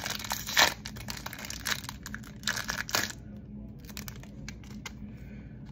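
Foil wrapper of a Pokémon booster pack crinkling and tearing as it is opened, with a burst of sharp crackles for about three seconds, then only a few light ticks.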